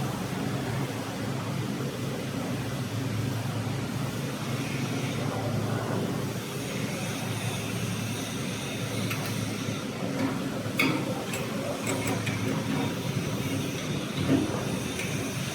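GWG-30 stainless-steel universal powder grinding mill running steadily, its motor-driven cutters and gear teeth milling material, with a couple of sharp clicks in the latter part.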